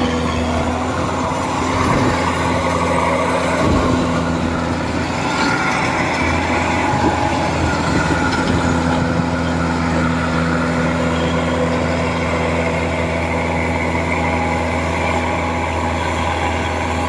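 Kubota DC-105X rice combine harvester running steadily as it cuts the crop: a constant diesel engine drone with the noise of its threshing machinery over it.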